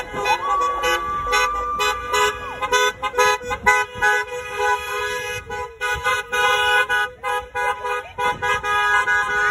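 Several car horns honking in overlapping, repeated toots. Over the first two seconds or so, a person holds one long cheer.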